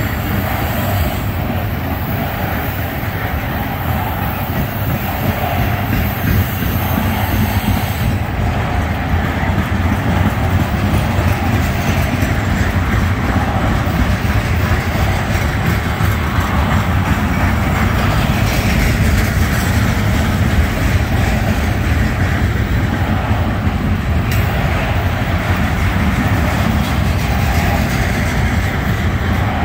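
Freight cars of a garbage train, flatcars carrying open-top waste containers, rolling steadily past: continuous steel-wheel-on-rail noise, heaviest in the low end.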